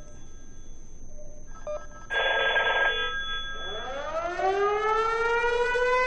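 Cisco IP phone sounding an emergency fire alert through its speaker. A short buzz (the text-message delivery tone) comes about two seconds in, then a siren wail that rises in pitch and holds high: the prerecorded alert-siren sound file being played out on the phone.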